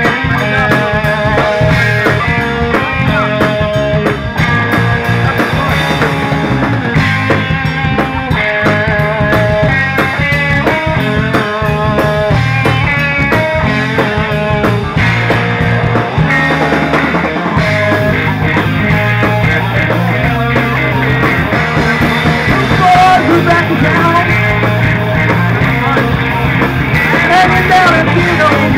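A live rock band playing: electric guitars and drum kit, loud and steady, with the low end dropping away briefly a little past halfway.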